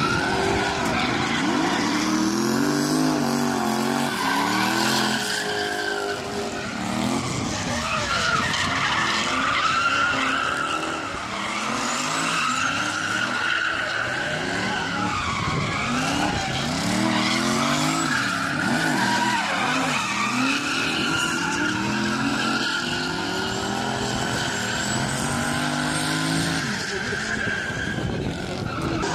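Drift car engine revving hard, its pitch rising and falling again and again as the driver works the throttle through the slides, with tyres squealing and skidding underneath.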